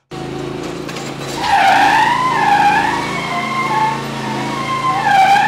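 Kawasaki FR691V 26 hp V-twin engine running on a Gravely zero-turn mower, freshly fitted with new piston rings. From about a second and a half in, the tyres squeal on the concrete floor in wavering tones as the mower spins.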